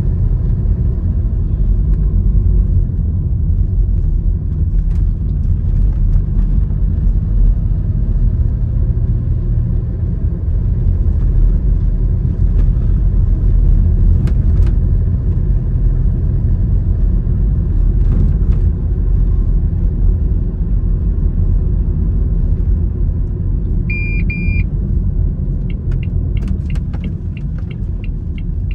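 Steady low rumble of a road vehicle's engine and tyres while driving, heard from inside, with a few scattered knocks. Near the end comes a short high beep, then a run of quick evenly spaced ticks.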